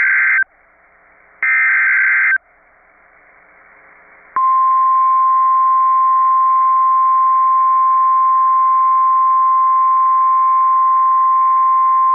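Emergency Alert System SAME header data bursts: a buzzy digital squawk ends just after the start and repeats once more for about a second, with faint radio hiss between. About four seconds in, the NOAA Weather Radio 1050 Hz alert tone starts, a single loud steady tone that holds, signalling that a warning is about to be read.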